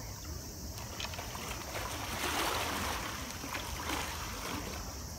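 Pool water sloshing and churning as a hippopotamus moves just under the surface, swelling to its loudest about two seconds in.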